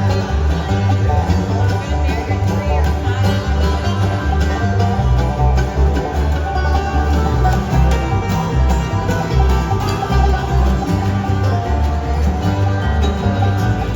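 A live band playing music, with plucked strings over a pulsing bass.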